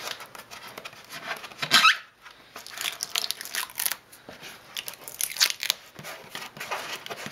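Rubber Plasti Dip coating being peeled and torn by hand off a plastic dirt-bike rear fender, in short irregular tearing sounds, loudest about two seconds in.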